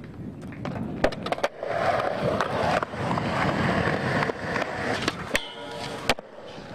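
Skateboard wheels rolling over smooth concrete, with a few sharp clicks of the board early on. About five and a half seconds in, a sharp hit starts a short grinding rasp that ends in a loud clack.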